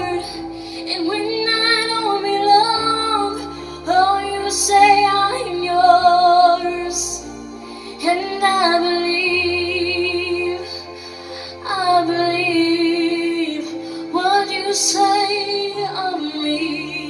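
A young woman singing a slow ballad into a handheld microphone over a karaoke backing track of sustained low chords, in phrases a few seconds long with vibrato on the held notes.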